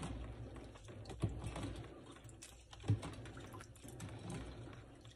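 A metal spoon stirring juice in a plastic pitcher, ticking and clicking against its sides, with two louder knocks about one and three seconds in.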